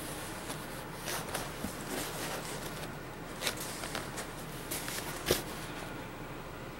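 Cardboard rustling and scraping as a shipping box and its cardboard panels are handled, with scattered small knocks and one sharper knock about five seconds in.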